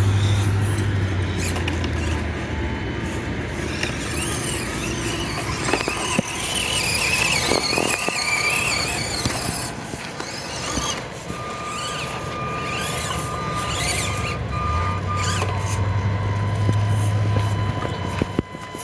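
Small electric motor and drivetrain of a 1/24-scale Axial SCX24 RC crawler whining. The pitch rises and falls with the throttle as it crawls, then holds a steady tone through the second half.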